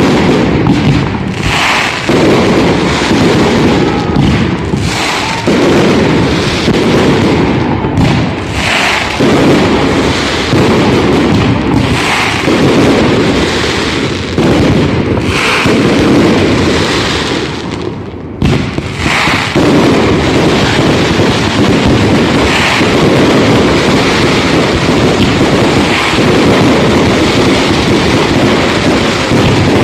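Fireworks display: a loud, dense barrage of shells bursting every second or two over a continuous rumble and crackle.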